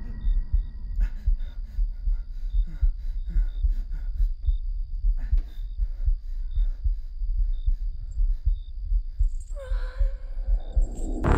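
Horror-film sound design: a low pulsing heartbeat, about two to three beats a second, under a faint high steady tone. A loud sudden hit comes in at the very end.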